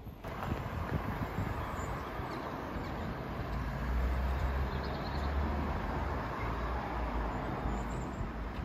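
Car traffic driving slowly past: a steady hum of engines and tyres with a low rumble that is strongest about halfway through.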